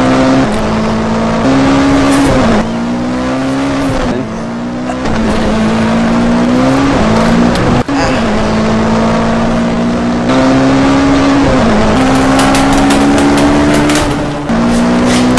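Race car engine revving up through the gears, its pitch climbing slowly and then dropping at each shift, several times over. Quick ticks are heard in the last few seconds.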